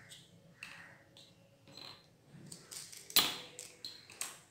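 Light clicks and clinks of small parts being handled on a tabletop as a metal RC-plane spinner and its bolt are taken off a propeller and set down, with a sharper clack about three seconds in.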